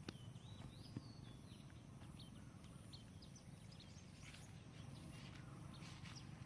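Faint bird chirps: a short warbling call in the first second and a half, then scattered brief high chirps, over a low steady background hum. Two small clicks near the start.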